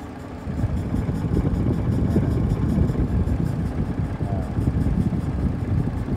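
Audi Q7 engine running, its rumble growing louder about half a second in. It is misfiring on cylinders 4-5-6: a faulty ignition coil has made the ECU cut fuel to the injectors.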